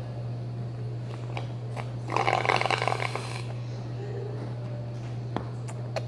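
A child slurping a drink through a straw, a loud rattling gurgle lasting a little over a second, about two seconds in.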